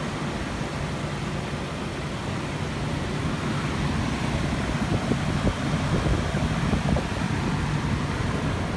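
Mazda MPV engine idling steadily while the transmission fluid is checked warm, with a few light knocks about halfway through.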